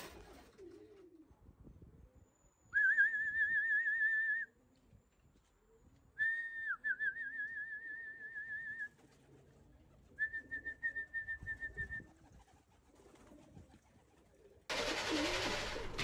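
A warbling, trilled whistle, sounded three times and each lasting a couple of seconds, the kind a fancier uses to call racing pigeons down to the loft. Near the end comes a loud rush of wingbeats as a pigeon drops onto the loft's landing board.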